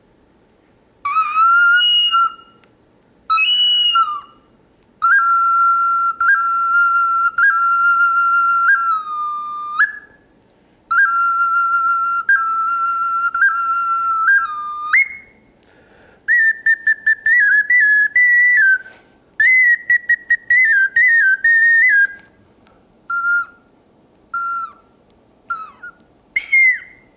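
Porcelain whistle flute, made in the form of an eagle bone flute, playing a piercing whistled melody. It opens with two short rising notes, then long held notes with slight pulses, then a run of quick stepping notes, and ends with short separate blasts and a higher note.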